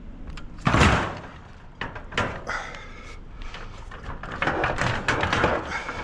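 Clanks and thumps of scrap being handled on a trailer: one loud knock a little under a second in, a couple more around two seconds, then a quicker run of clattering near the end.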